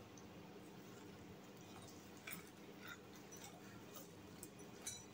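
Near silence, broken by a few faint crackles and ticks as crispy fried chicken wings are torn apart by hand.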